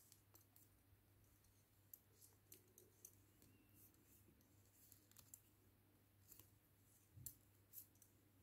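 Faint, irregular clicks of metal double-pointed knitting needles tapping against each other as stitches are knitted, one of the louder ones a little after seven seconds in.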